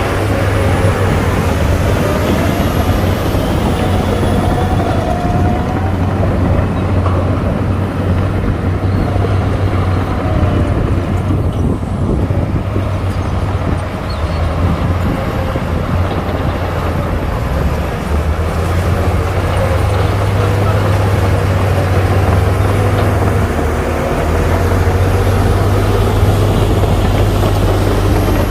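Shantui DH17C2 bulldozer's diesel engine running steadily under load with a loud, continuous low drone.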